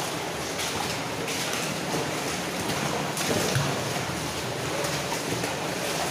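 Steady rushing and splashing of water in a mine drainage culvert.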